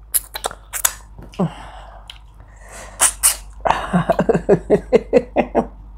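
Wet mouth clicks and lip smacks from people eating with their fingers, then two sharp bursts of breath about three seconds in. A quick run of short voiced pulses, about five a second, fills the last two seconds.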